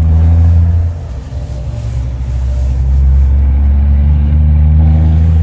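Truck engines running close by: a loud, deep rumble that eases about a second in and swells again.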